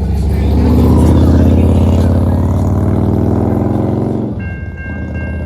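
A road vehicle's engine passes close by, loudest about a second in and dying away by about four seconds. Near the end a steady three-note horn starts sounding, the pole-mounted wayside horn at the grade crossing.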